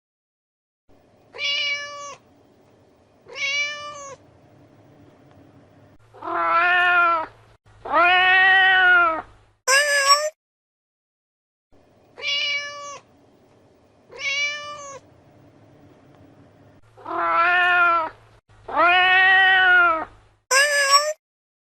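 Domestic cat meowing: two short meows, then two long, drawn-out, lower meows and a short high-pitched mew. The same sequence plays twice.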